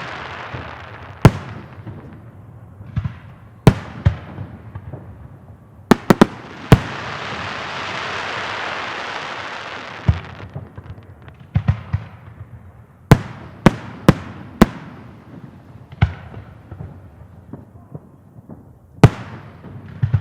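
Fireworks salute: about a dozen sharp bangs of shells bursting overhead, some in quick clusters, with a long rushing hiss swelling for several seconds in the middle.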